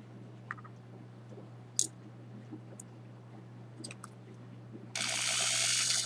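A few light clicks of pliers and small parts being handled, then about five seconds in a Ryobi drill's motor starts and runs steadily, spinning a steel control rod gripped in its chuck.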